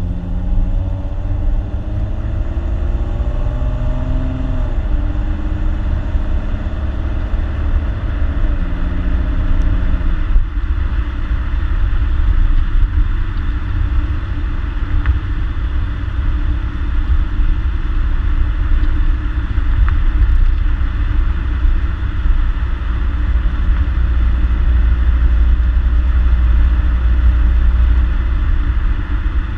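2014 Ford Mustang's 3.7-litre V6 on its stock exhaust, accelerating through the gears: the engine note rises and drops sharply at two upshifts. Then it settles into a steady low drone at cruise, with road noise.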